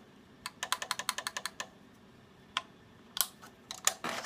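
Clicks from an AR-15 rifle being handled: a quick run of about a dozen light clicks starting about half a second in, then a few single clicks near the end.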